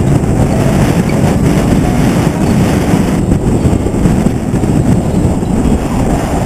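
Wind buffeting the camera's microphone: a loud, rough, uneven low rumble.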